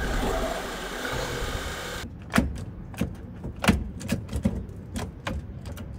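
Kia Bongo's turbodiesel engine running at idle for about two seconds, then a quick series of irregular sharp clicks and knocks over a faint low rumble.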